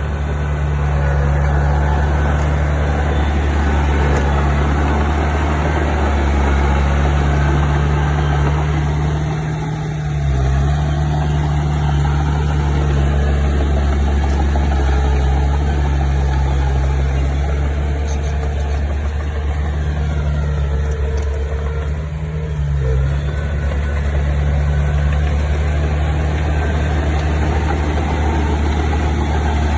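Diesel engine of a heavy construction machine running steadily. Its engine speed dips briefly twice, about a third of the way in and again past two-thirds.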